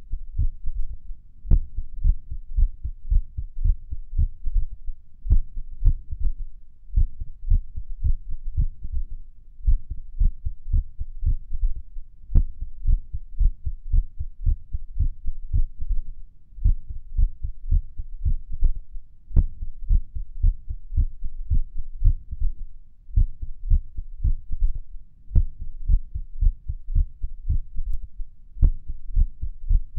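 A human heart beating fast and irregularly, heard up close through a microphone on the chest at Erb's point: dull low lub-dub thuds, several a second, with uneven spacing and a few short pauses. A handful of sharp clicks stand out above the beats.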